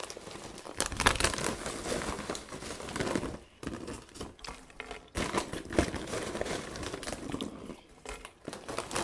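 Foil-lined potato chip bag crinkling as a hand rummages inside and pulls out wavy chips, with a few short pauses.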